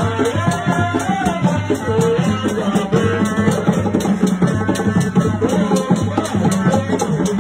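Traditional Tiv dance music: a steady, repeating drum beat with shaker rattles and a wavering melody over it.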